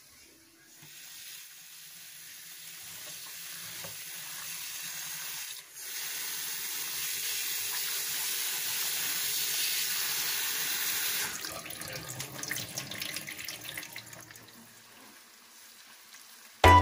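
Tap water running into a bowl of raw beef pieces in a sink as they are rinsed by hand. The flow grows gradually louder, turns choppier about eleven seconds in, and fades away near the end.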